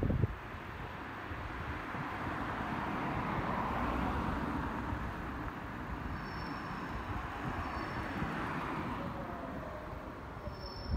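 A Keikyu electric train running past, a rumble and rush that swells to its loudest about four seconds in and then slowly fades, with faint thin high whines later on. A short thump right at the start is the loudest moment.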